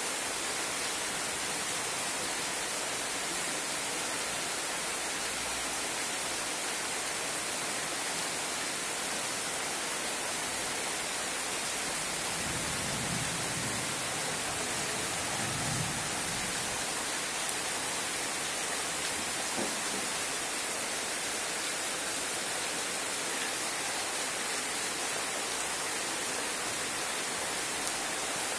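Heavy rain falling steadily on a pond and the surrounding trees, an even hiss, with a few single louder drops near the middle.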